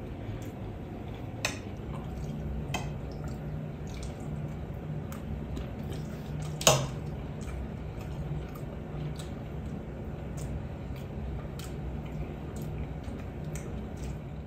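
Knife and fork clinking and scraping on a plate while someone eats, in scattered short clicks with one louder clink about seven seconds in, over a low steady hum.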